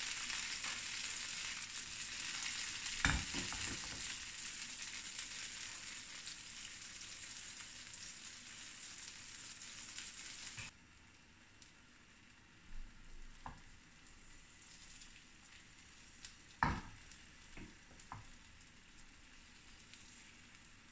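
An egg and tomato omelette sizzling in an oiled nonstick frying pan, the sizzle slowly fading. About ten seconds in it drops off sharply to a faint hiss, broken by a few short knocks, the later ones from a spatula working at the pan.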